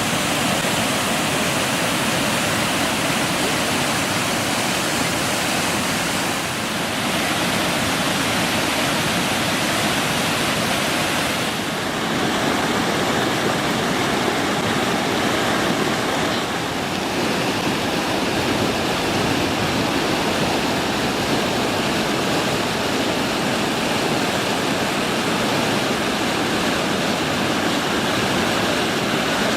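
River water cascading over rocky falls and chutes, a steady rushing noise with three brief dips in level in the first two thirds.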